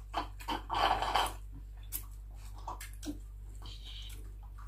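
People eating fried chicken at a table: wet chewing and mouth sounds with scattered small clicks and rustles as food and cutlery are handled, the busiest stretch about a second in.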